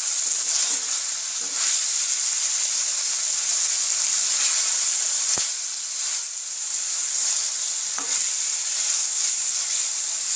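Chicken mince with onions and green chillies sizzling steadily in a metal wok as a spatula stirs and scrapes it, being sautéed a few minutes more. A sharp tap stands out about five seconds in.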